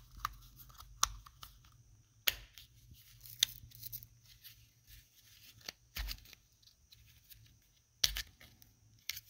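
Small scattered clicks and scrapes of hard plastic as a Ford key fob's snap-on battery cover is pressed back onto the fob. The cover is being fitted without its little tongue end placed first, so it is not seating properly.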